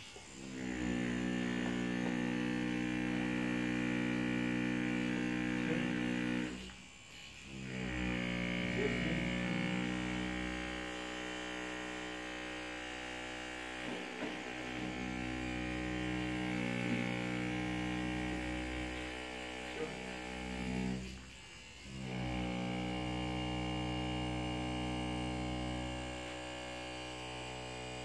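Handheld electric percussion massager buzzing steadily as it taps against the patient's flank over the kidney. It cuts out briefly twice and restarts.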